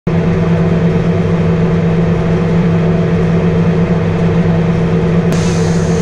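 International 615 combine running while harvesting corn, heard from inside the cab: a steady engine and machinery drone, with a higher hiss joining about five seconds in.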